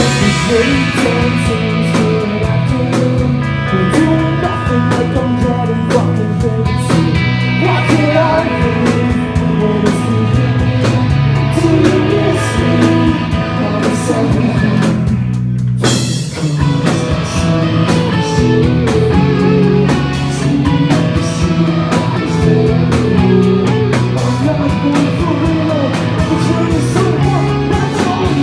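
Live pop-punk band playing, with electric guitars, drum kit and singing, and a brief break in the high end about halfway through.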